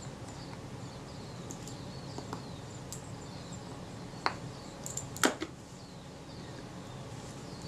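Quiet room tone with a few small, sharp metallic clicks about four and five seconds in. These come from a small screwdriver and tweezers handling the tiny retainer screws and brass plates of a lens mount. Faint high chirps sit in the background.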